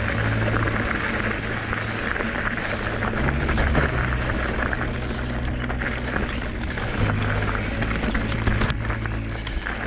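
Mountain bike rolling fast along a dirt singletrack trail: continuous tyre noise with irregular rattles and knocks over bumps.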